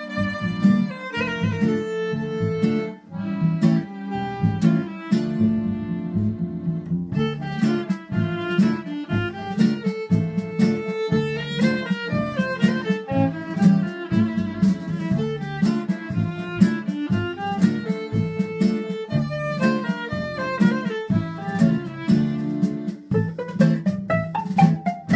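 A violin playing a melody of held and moving notes over a steady plucked or strummed string accompaniment.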